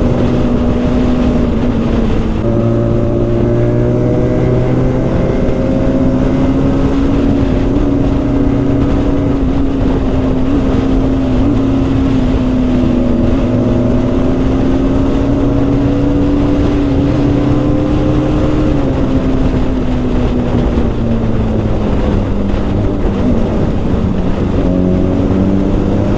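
BMW sport motorcycle's engine running steadily at cruising speed, with wind and road noise. Its pitch climbs slowly, then eases off near the end as the rider backs off the throttle.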